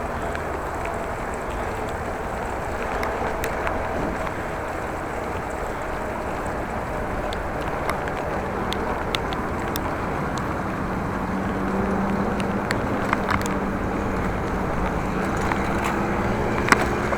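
Steady wind and road noise from riding a bicycle in the rain, with scattered sharp ticks throughout. A low steady hum joins in about twelve seconds in.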